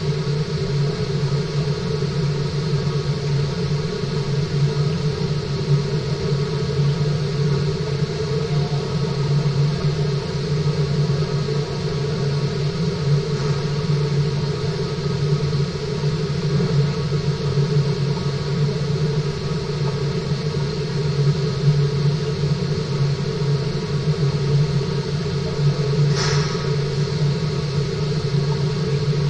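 Steady low hum and rush of a fish-farm tank's water circulation, with a few faint steady tones over it. A brief sharper sound about 26 seconds in.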